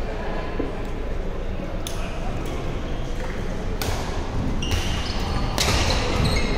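Volleyball being played on a hardwood gym floor in a large hall: three sharp ball strikes about two seconds apart, each ringing on briefly in the room. In the second half come short, high squeaks of shoes on the floor, over a steady murmur of voices.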